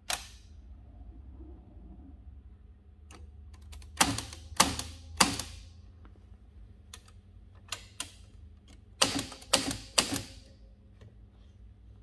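1939 Bar-Lock Super Model 19 manual typewriter: a click at the start, then three sharp typebar strikes, a few lighter clicks, and three more strikes. The lighter clicks are the two-colour ribbon selector lever being switched between the red and black typing.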